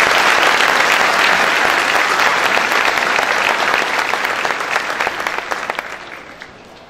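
Audience applauding: a dense crackle of many hands clapping, which dies away over the last couple of seconds.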